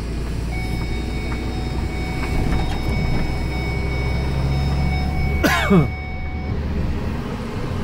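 Truck engine running at low speed, heard from inside the cab as a steady low rumble. A thin steady whine sits over most of it, and there is a short falling squeal about five and a half seconds in.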